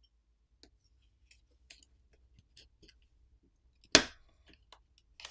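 Small plastic clicks and ticks of a smartphone's internal parts being handled, then one loud sharp snap about four seconds in as the plastic top cover over the main board is lifted free, followed by a few lighter clicks.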